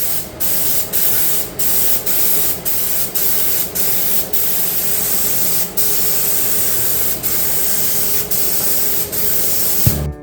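HVLP paint spray gun hissing as it sprays paint, the spray stopping and starting with short breaks every second or so.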